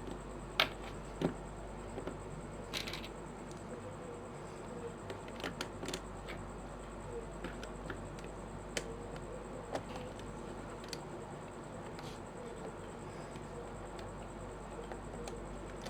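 Plastic pieces of a 5x5 puzzle cube clicking and tapping as they are fitted back into place by hand. The clicks are scattered and light, with two louder snaps about half a second and a second in, over a faint steady hum.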